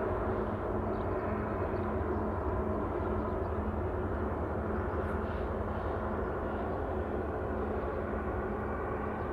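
Steady outdoor background noise, mostly low rumble, with a faint hum that pulses about twice a second.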